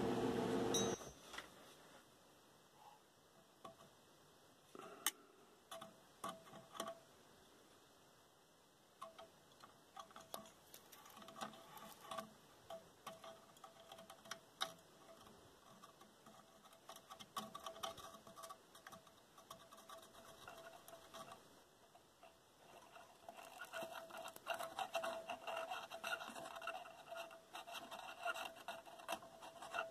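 Faint scattered clicks, taps and scratches of soldering-iron and hand work on a vintage tube radio's metal chassis and terminals, growing busier in the last several seconds. A steady hum cuts off about a second in.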